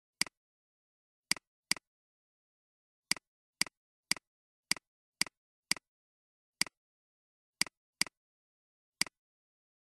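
Computer mouse button clicking: about thirteen single sharp clicks at uneven intervals, with silence between them.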